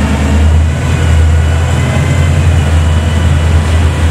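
Engine of a Rocket Bunny wide-body first-generation Pontiac Firebird running at low revs as the car moves off slowly: a loud, deep, steady sound with a short dip in level about a second in.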